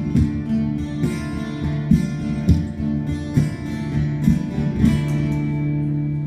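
Acoustic guitar strummed in a steady rhythm, ending on a chord left to ring out near the end.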